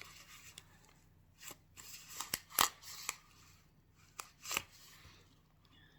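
Packaging being opened by hand around a collectible figure's head: about half a dozen short, crisp crackles and snips, clustered between about one and a half and five seconds in.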